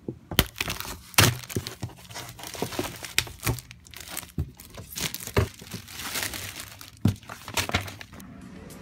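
Close handling noise: irregular crinkles, rustles and sharp knocks as things are moved and handled right at the microphone, the loudest knock about a second in.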